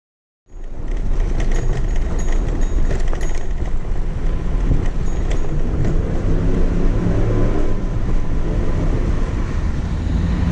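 Ride noise from a bicycle-mounted camera on cobblestones: wind rushing over the microphone and the bike rattling over the stones. It starts about half a second in.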